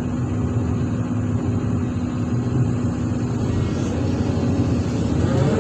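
Sany SY365H Pro excavator's diesel engine running steadily, heard from inside the operator's cab, with a rising whine joining near the end.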